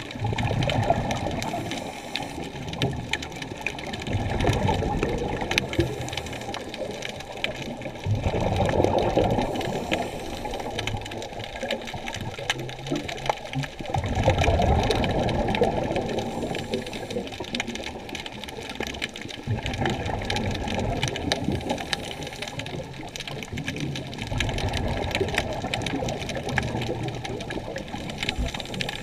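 Muffled underwater water noise heard from inside a camera's waterproof housing. A dull rush swells for a couple of seconds about every five seconds, over a faint steady high whine.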